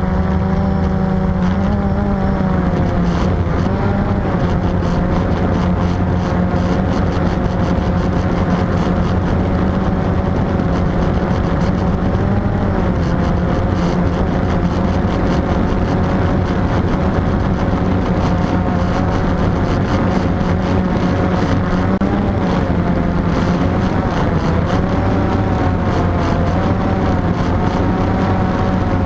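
Quadcopter's electric motors and propellers buzzing steadily in flight, the pitch wavering up and down as the motors change speed to steer and hold position.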